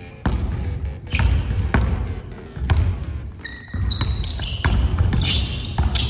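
A basketball dribbled on a hardwood gym floor, bouncing unevenly about once a second. A few short sneaker squeaks come in a little past halfway.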